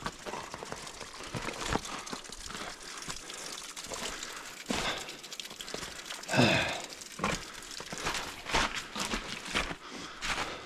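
Heavy breathing of a climber working down an icy cliff, with scraping and knocking of hands and boots on frozen rock and ice, and a short strained grunt falling in pitch about six seconds in.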